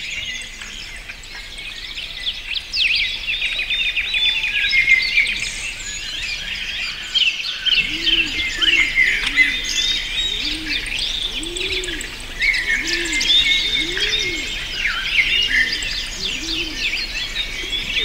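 A dense chorus of many birds chirping and trilling. About eight seconds in, a lower, repeated call joins, coming roughly every second.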